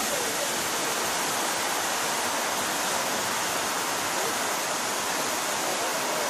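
Narrow-gauge steam locomotive letting off steam: a steady, unbroken hiss.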